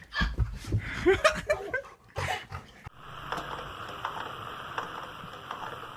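A dog making short vocal sounds amid scuffling knocks, then an abrupt change about halfway through to a steady hiss with faint ticks.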